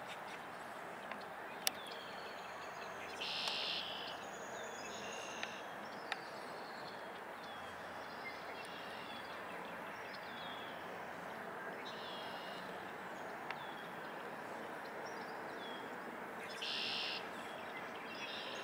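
Red-winged blackbird song: two short buzzy trills, about three seconds in and near the end, with short high chirps scattered between them over a steady outdoor hiss. A single sharp click about two seconds in.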